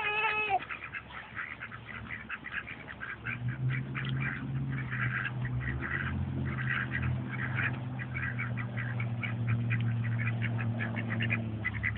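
A flock of ducks quacking, with many short calls close together. From about three seconds in, a steady low hum runs under them and stops shortly before the end.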